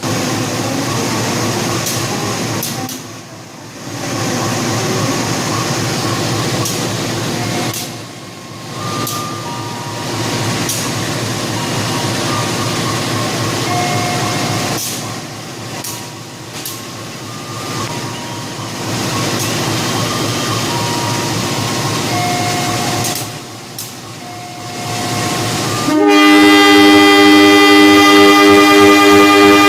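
Rushing rumble of a train on the rails, swelling and dipping every few seconds. About 26 seconds in, a CC 203 diesel locomotive's horn starts a loud, steady blast and holds it: the long departure horn signal (semboyan 35).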